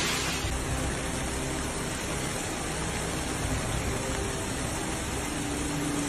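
Steady rushing noise of storm wind and rain.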